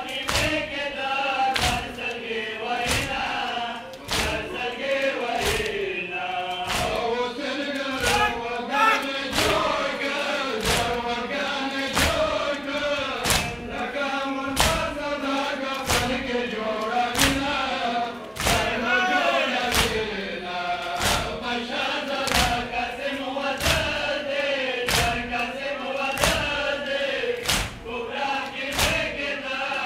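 Men chanting a Pashto noha, a Shia lament, while the crowd beats their chests (matam) in time, a sharp unison thump about three times every two seconds under the singing.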